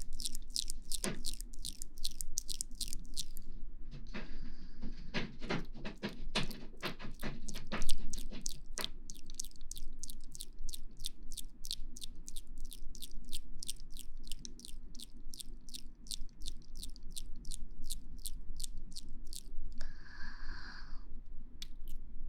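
Close-miked ASMR trigger sounds: a steady run of crisp, wet-sounding clicks, about four or five a second, denser for a few seconds early on, with a short breathy puff near the end.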